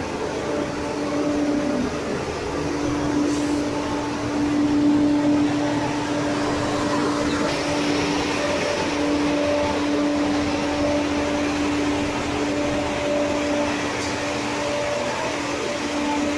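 Steady mechanical hum of a stationary diesel railcar, its idling engine and air-conditioning running, with a low drone held throughout.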